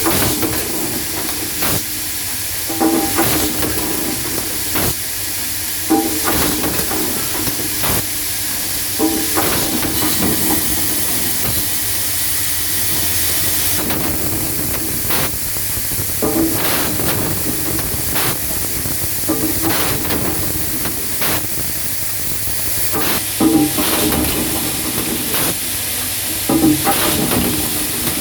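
Automatic assembly machine for tilt-and-turn espagnolette locking parts running: a steady hiss with sharp clacks and knocks every second or two as it cycles.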